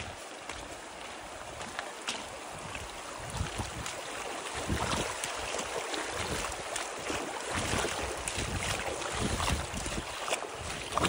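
Footsteps wading through a shallow, stony stream: irregular splashing steps over the steady rush of the water, growing louder after the first couple of seconds.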